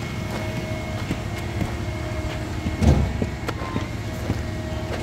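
An engine runs steadily, mixed with scraping and clicking from hand tools working wet concrete and gravel, and a louder scrape or knock about three seconds in.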